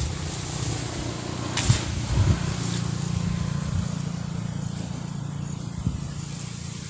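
An engine running steadily at a low, even pitch, with one short knock about a second and a half in.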